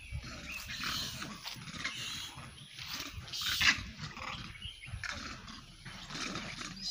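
Vervet monkeys in a troop calling: scattered, irregular high-pitched cries and chatter, the loudest about three and a half seconds in.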